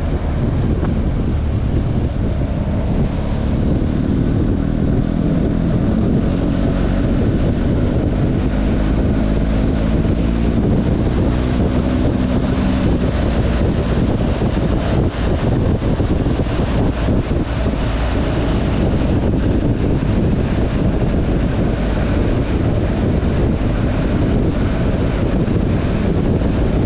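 Wind buffeting a helmet-mounted action camera on a moving BMW R 1250 GS motorcycle, with the bike's boxer-twin engine droning underneath. For several seconds in the first half the engine hum rises in pitch in steps as the bike accelerates.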